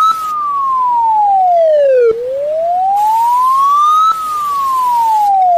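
Wailing siren: a single clean tone sweeping slowly down and back up, about two seconds each way, over and over.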